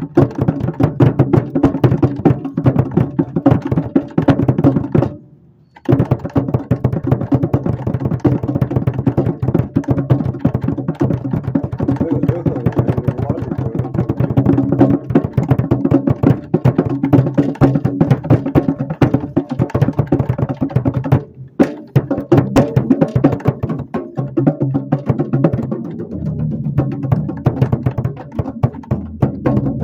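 Drum kit played along to a song, heard from just under the snare drum: dense, loud drum hits over music with a steady bass line. Everything stops for under a second about five seconds in, and again briefly about twenty-one seconds in.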